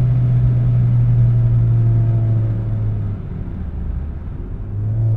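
Engine of a 2009 Vauxhall Astra VXR, a turbocharged 2.0-litre four-cylinder, heard from inside the cabin as a steady drone at speed with road noise. The note falls away about three seconds in, then swells briefly near the end.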